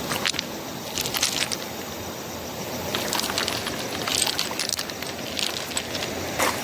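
River water running steadily, with short sharp splashes and knocks scattered through it, several times.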